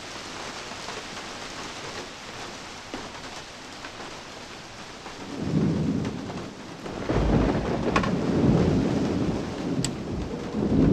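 Steady rain, then about halfway through a deep rumble of thunder swells up and rolls on, loudest in the last few seconds.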